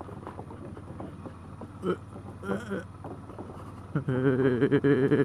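Suzuki V-Strom 650's V-twin engine running at low speed across a timber-plank bridge deck, with the tyres knocking and clattering over the boards. About four seconds in, a loud, wavering, drawn-out tone comes in for about two seconds.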